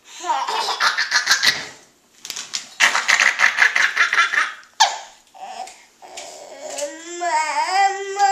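A baby laughing hard in two long runs of rapid, breathy laughs, then a high, sing-song babble that rises and falls near the end.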